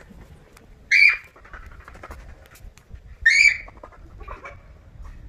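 An animal's loud, short, high-pitched calls: two in quick succession about two seconds apart, then a fainter one.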